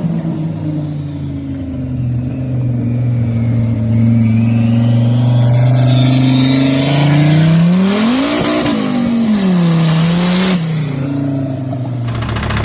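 Car engine running with a steady note, then revving up and dropping back about eight seconds in.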